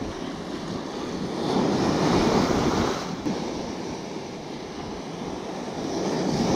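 Ocean surf washing in around the feet on a sandy beach. It is a steady rushing wash that swells twice, about a second and a half in and again near the end, as waves run up the shore.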